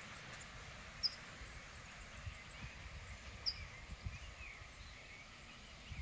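Outdoor birdsong: two short, sharp high chirps, one about a second in and one midway, over faint steady twittering, with soft low rumbles underneath.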